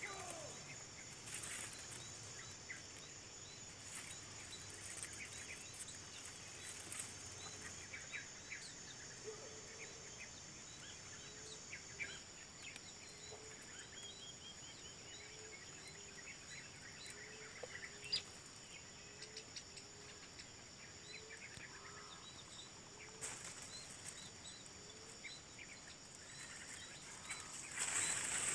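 Tropical forest ambience: a steady high insect drone with scattered short bird chirps, and a low call repeated about once a second through the middle stretch. The noise grows louder near the end.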